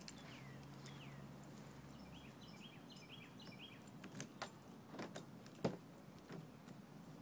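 Quiet outdoor background: a few bird chirps in the first half, a short low hum at the start, and scattered sharp clicks and knocks, the loudest a little past the middle.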